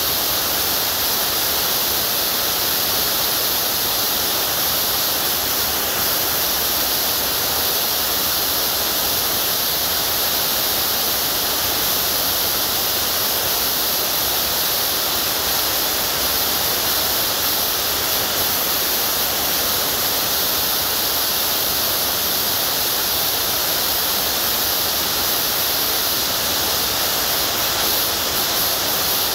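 A steady, loud hiss of even noise, strongest in the high range, with no change in level or character throughout.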